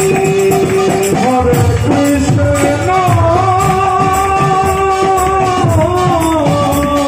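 Kirtan music: mridanga drums playing a dense rhythm under a harmonium's held notes that step in pitch, with group singing and jingling hand cymbals.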